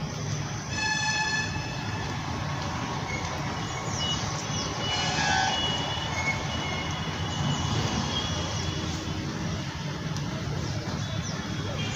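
A distant horn sounds once for about a second, about a second in, and more horn-like tones come around five seconds in, over a steady low background hum.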